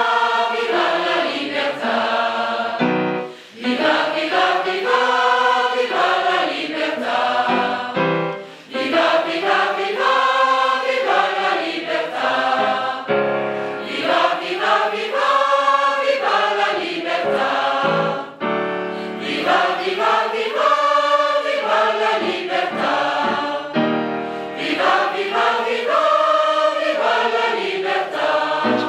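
Large mixed choir of men's and women's voices singing together in sung phrases, with brief pauses for breath every five seconds or so.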